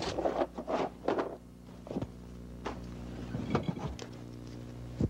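Hands rummaging in a cardboard box of old film equipment: cardboard and paper rustling, with scattered clicks and knocks as the gear is moved, busiest in the first second or so.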